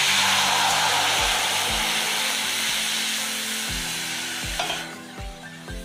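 Water poured into a hot kadai (Indian wok), hissing and sizzling loudly as it flashes to steam on the hot metal. The hiss is loudest at first, fades gradually and dies away about five seconds in.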